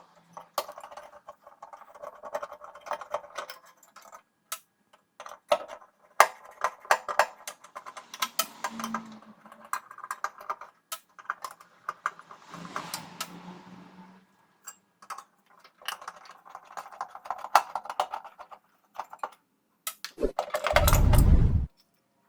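Metal clicks, clinks and rattling of tools and parts being handled while a microwave oven's magnetron is unbolted and taken out. There is a louder rush of noise lasting about a second near the end.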